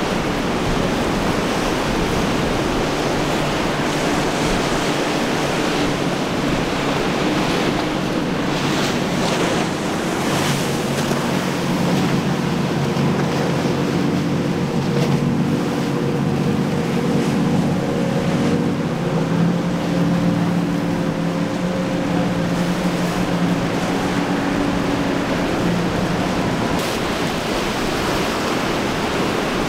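Rough surf and choppy water washing, with wind buffeting the microphone. From about ten seconds in, a boat engine drones under the surf, and its pitch shifts partway through.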